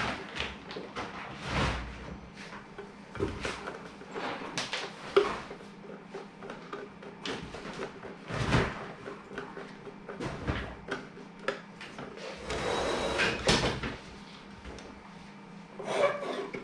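Irregular clicks, knocks and scrapes of hard plastic parts being handled and pressed together into a black plastic controller housing, with a longer scraping stretch about three-quarters of the way in.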